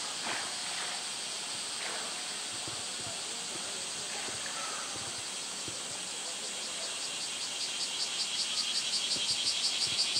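Cicadas singing: a steady high buzz, joined about seven seconds in by a louder chorus pulsing about five times a second that keeps building.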